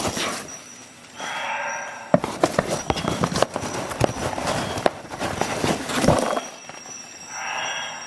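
Metal clicks and knocks from the links of a Leatherman Tread bracelet multi-tool being handled, thickest from about two to six seconds in, with a short scraping sound about a second in and again near the end.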